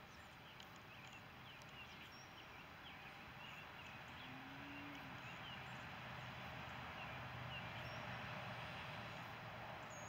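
Faint outdoor ambience: small birds chirping in many brief, high calls over a steady hiss, with one short low note about four seconds in.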